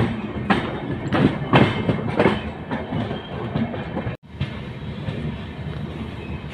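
Express passenger train running, its wheels clattering over rail joints and points in quick, irregular knocks over a steady rumble. About four seconds in the sound drops out for an instant, then goes on as a smoother rumble.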